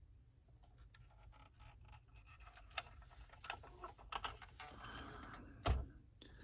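Light clicks and rattles of a 1/18 diecast model car being handled, with a louder knock a little before the end.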